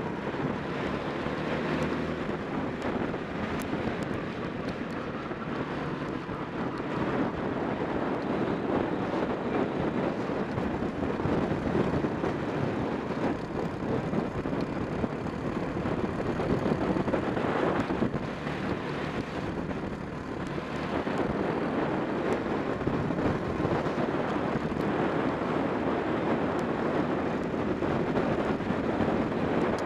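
Racing kart engine running at race speed, heard from an onboard camera on the kart, mixed with heavy wind noise on the microphone.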